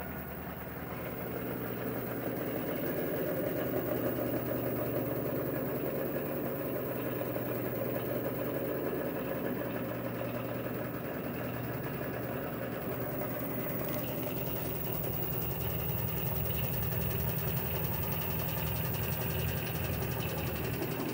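LG washer-dryer combo spinning up fast, with the drum and motor giving a steady mechanical hum and vibration rumble. The load is not yet running smoothly.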